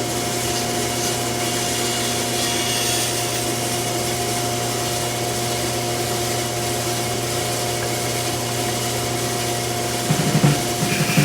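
Longmill MK2 CNC router running steadily with a V-bit cutting wood: a constant hum with steady tones over a hiss. About ten seconds in, a few irregular low knocks break in.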